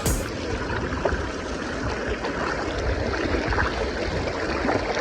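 Creek water flowing, a steady rushing babble.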